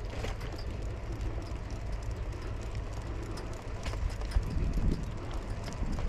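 Cycling on a paved path: wind rumbling on the microphone and tyre noise, with scattered light clicks and rattles. It grows louder in the second half.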